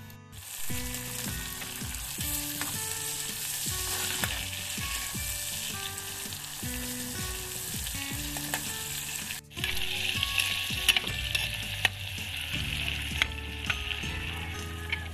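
Food frying in a hot pan, a steady sizzle with occasional stirring, cutting out briefly about nine seconds in and coming back. Background music plays underneath.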